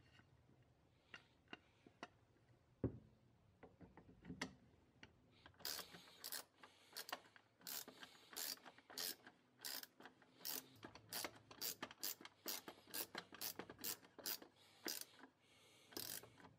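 Hand socket ratchet, on an extension and bit, driving the stock screw through the wooden buttstock into the receiver. After a few scattered clicks and a dull knock, the pawl clicks in short runs, about two strokes a second, from about five seconds in.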